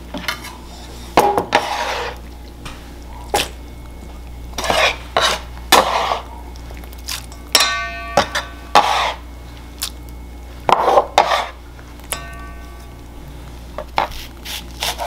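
Kitchen utensils scraping and knocking as diced tomatoes are moved off a wooden cutting board into a stainless steel mixing bowl. There are scattered clinks and short scrapes, and the metal bowl rings briefly twice, the first time about halfway through.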